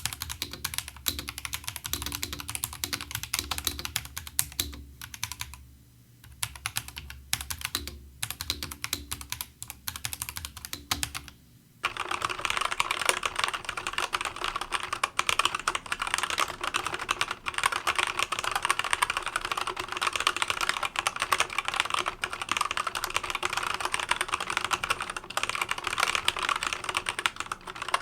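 Ajazz AKC087 mechanical keyboard being typed on, a fast run of keystrokes broken by short pauses. About twelve seconds in it changes to the Kebohub EE01 mechanical keyboard, typed without pause with a louder, brighter clatter.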